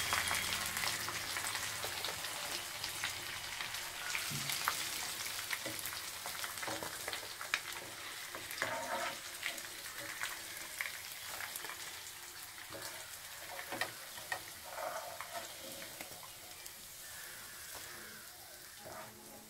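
Hot oil sizzling in a kadai as pieces of deep-fried chicken pakoda are lifted out with a wire skimmer, with occasional sharp clicks of the skimmer against the pan. The sizzle grows gradually quieter toward the end.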